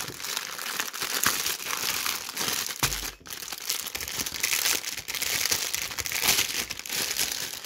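Clear plastic bag of buns crinkling and crackling as a hand opens it and handles it, with a brief pause about three seconds in.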